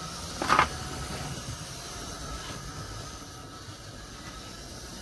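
Airfix OO-gauge Royal Scot model locomotive running on the track: a steady hum from its tender-drive motor and wheels on the rails, with one short, sharp clatter about half a second in.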